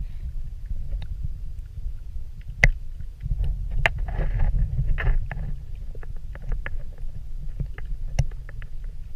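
Underwater ambience picked up by a submerged camera: a steady, muffled low rumble of moving water with scattered sharp clicks, and a brief swell of hiss about four seconds in.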